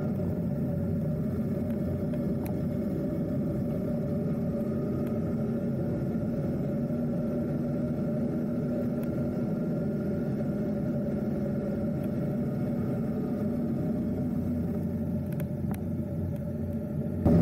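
A vehicle engine running steadily while on the move, its drone holding an almost even pitch throughout.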